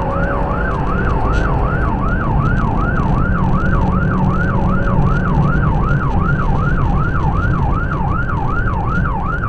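Police car siren on a fast yelp, its pitch sweeping up and down about three times a second, heard from inside the pursuing cruiser, with steady road and engine noise beneath.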